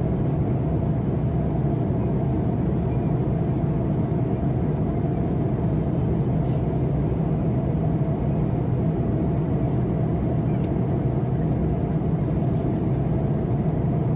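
Steady cabin noise of an Airbus A330-200 airliner in flight: a constant low rush of airflow and engine noise.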